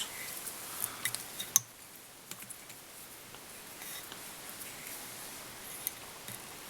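Faint small clicks and rustling of hands working at a fly-tying vise, winding an oval silver tinsel rib up through the hackle, with one sharper click about a second and a half in.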